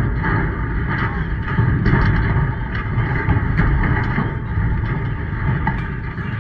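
Wind buffeting the microphone: a steady low rumble that rises and falls, with faint scattered clicks above it.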